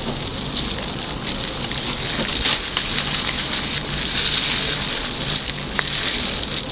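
Steady background noise: a low, unsteady rumble under a constant hiss.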